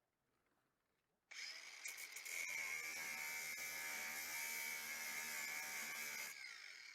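A small handheld electric power tool, working on the rusty sheet metal of the car body, starts about a second in and runs steadily with a high whine, then winds down near the end.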